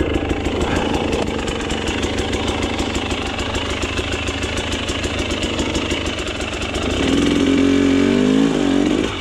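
KTM 300 XC-W two-stroke single-cylinder engine running at low revs under load on a steep rocky climb. About seven seconds in it is revved harder, the pitch rising and falling, before easing off near the end.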